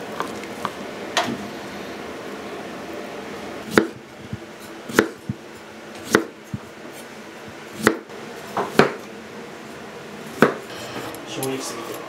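Kitchen knife cutting food on a cutting board: a dozen or so sharp knocks of the blade against the board at uneven intervals, over a low steady background.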